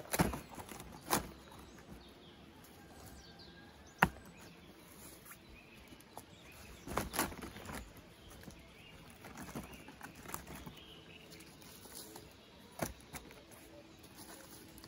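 Scattered knocks and rustles of wood being handled and worked by hand outdoors: a sharp knock about four seconds in, a short cluster of knocks about seven seconds in, and lighter ones between.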